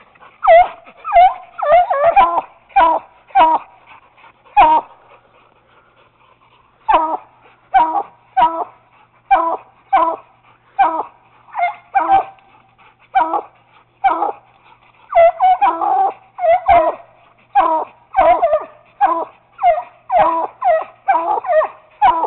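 Treeing Walker coonhound pup barking treed up a tree at a caged raccoon: short, loud barks repeated about one to two a second, with a pause of about two seconds a quarter of the way in.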